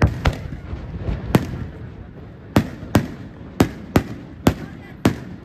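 Aerial firework shells bursting overhead: a rapid, irregular series of about nine sharp bangs, each trailing off in a short echo.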